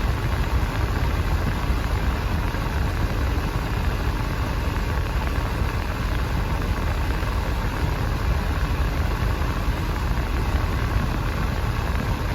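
1988 Nissan 300ZX Turbo idling: a steady low rumble with an even hiss over it.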